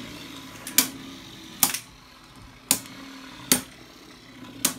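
Rage Longinus and Erase Devilos Beyblade Burst spinning tops clashing in a plastic stadium: five sharp clacks about a second apart.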